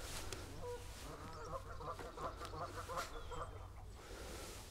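Waterfowl on the lake calling: a quick run of short clucking calls about a second in, fading out after about three seconds.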